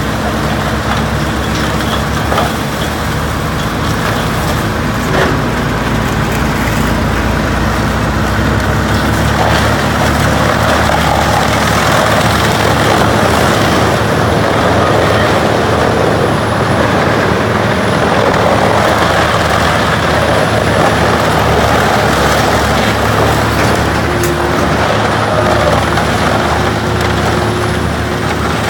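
Large industrial wood grinder running: a steady diesel engine drone under the noise of wood being ground up, the grinding noise growing denser from about nine seconds in.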